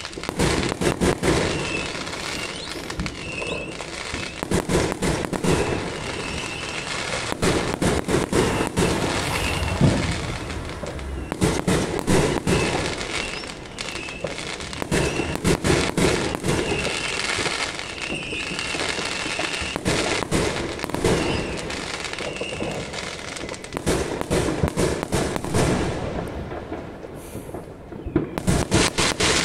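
Fireworks and firecrackers going off in a constant barrage: many bangs and crackles overlapping, with louder clusters of bangs every few seconds.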